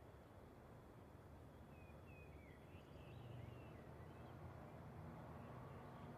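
Near silence: faint outdoor ambience with a low hum and a few faint, short bird chirps.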